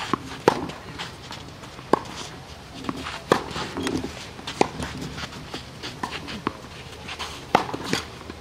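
Tennis rally on a clay court: rackets striking the ball in sharp pops, about one stroke every second and a half, some half a dozen in all.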